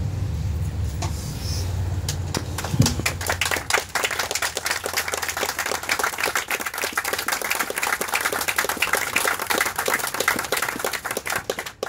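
Audience applauding: many hands clapping, building about two to three seconds in and running on until it breaks off just before the end. A low rumble sits under the first few seconds.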